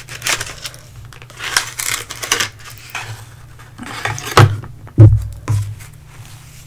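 Paper pie sleeve crinkling as a fried pie is slid out of it, followed by a few heavy thumps on the table between about four and five and a half seconds in, the middle one the loudest.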